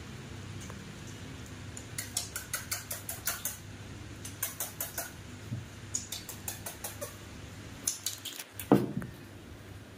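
Quick runs of sharp, wet mouth clicks and smacks at a baby monkey's milk-bottle feeding, about five a second, in short bursts, with a louder smack near the end. A low hum runs underneath.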